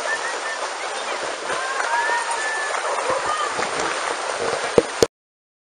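Shallow pool water splashing under many wading dogs and people, with the hubbub of a distant crowd and scattered far-off calls. A sharp click comes near the end, and then the sound cuts off suddenly.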